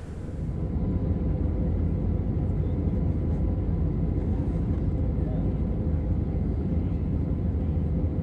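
Steady low drone of jet aircraft engines in flight, with a faint constant hum tone, coming in about half a second in.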